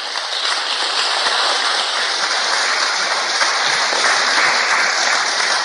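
Audience applauding steadily for several seconds.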